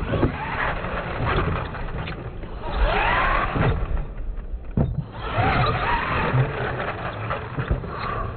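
R/C monster truck's motor revving up and down in whining glides as the truck is driven at a ramp, with a few sharp knocks as it hits the ramp, tumbles and lands.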